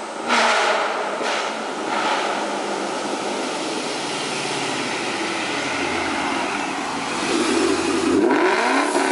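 Mustang GT V8 exhaust through AWE Touring axle-back mufflers, running steadily, then louder with the engine note rising near the end.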